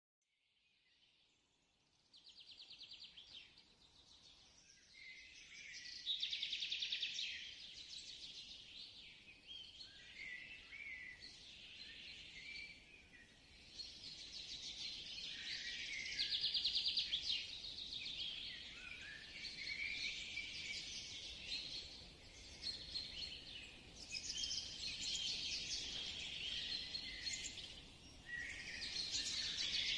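Many small birds chirping and trilling together, a dense, continuous chorus that fades in over the first couple of seconds.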